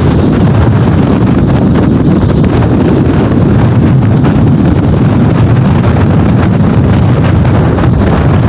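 Steady, loud wind buffeting the microphone: a continuous low rushing rumble with no breaks.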